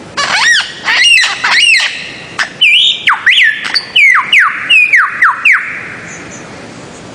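Paradisaea bird-of-paradise calling loudly: three rising-and-falling squawks in the first two seconds, then a run of about seven quick notes, each sliding steeply down in pitch, over the next three seconds.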